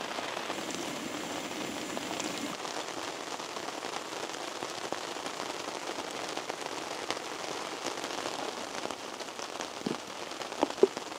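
Steady rain falling, an even pattering hiss, with a few light knocks near the end.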